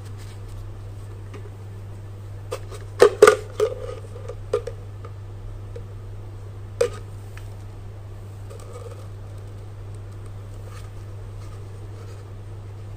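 Plastic dust cup and filter parts of a Khind VC9678 handheld cordless vacuum being handled. A cluster of sharp clicks and knocks comes about three to four and a half seconds in, and one more click near seven seconds, over a steady low hum.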